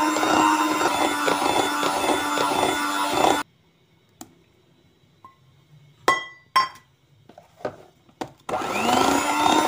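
Electric hand mixer beating cake batter of creamed butter, sugar and egg. It stops abruptly about three and a half seconds in. In the pause come a few light clicks and two sharp ringing clinks. Near the end the mixer starts again, its pitch rising as it comes up to speed.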